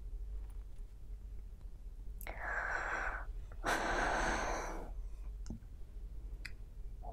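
A woman draws a deep breath in and then lets a longer, louder breath out through her open mouth. It is a steadying breath taken as she wipes tears from her eyes.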